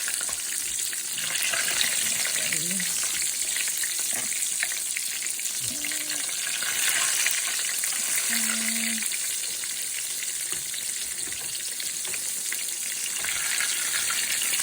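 Cornmeal-breaded green tomato slices frying in hot oil in a pan: a steady sizzle with fine crackling.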